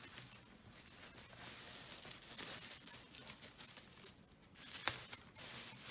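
Bubble wrap and packaging rustling and crinkling as it is handled and pulled away, with scattered small crackles and one sharper click near the end.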